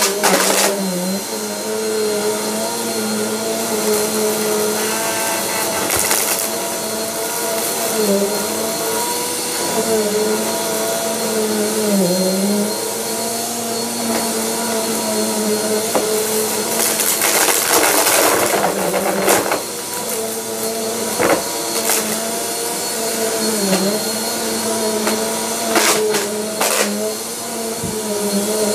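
Upright bagless vacuum cleaner running on carpet, its motor hum dipping briefly in pitch every couple of seconds as it is pushed back and forth. Several short crackling rushes, the longest about two-thirds of the way through, come as debris is sucked up.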